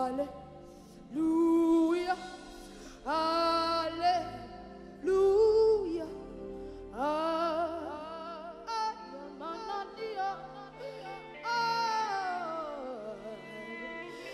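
Gospel worship music: a female lead singer sings short, wavering held phrases over sustained keyboard and bass chords, ending in a long falling vocal run near the end.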